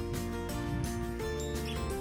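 Background music: a melodic instrumental track with plucked or strummed string notes and a steady bass.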